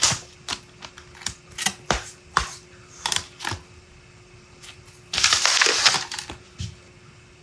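Sharp, irregular clicks and taps of a paint marker being handled and its tip pressed down against the work surface, then a short scraping rush about five seconds in, over a faint steady hum.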